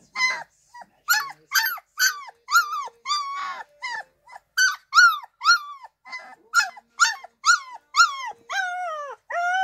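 Two-week-old Irish Wolfhound puppy howling: a run of short, high yelping calls, about two a second, each rising and then falling in pitch. Near the end comes one longer call that slides down in pitch.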